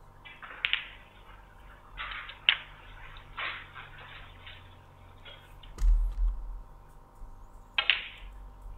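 Snooker balls clicking: the cue tip striking the cue ball and balls knocking together, heard as several separate sharp knocks. A heavier, dull thump comes a little after halfway.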